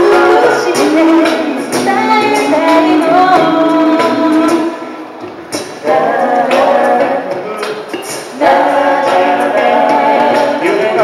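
A cappella group of mixed male and female voices singing in close harmony through microphones and a PA, with crisp percussive ticks in the beat. The singing drops to a softer passage about halfway through, then comes back in full, with a further swell about two-thirds of the way in.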